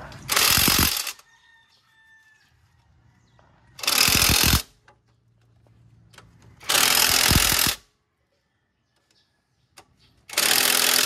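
Impact wrench hammering in four bursts of about a second each, trying to break loose tight bolts on a car engine.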